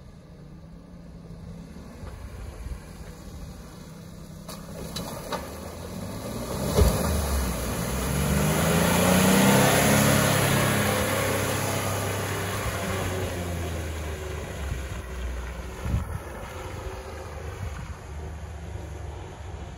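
Jeep Wrangler driving through a muddy water hole, its engine revving up and down and growing louder as it comes past close by with water and mud splashing, then fading as it pulls away. A sharp thump about seven seconds in and another about sixteen seconds in.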